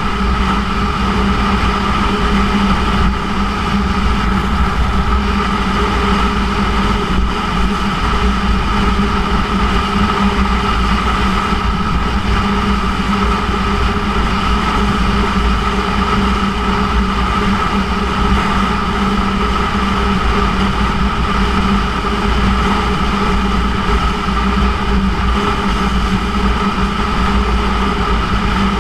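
Yamaha YZF-R1's inline-four engine with a Yoshimura titanium exhaust, running at a steady pitch while the motorcycle cruises at constant speed, over a low wind rumble on the microphone.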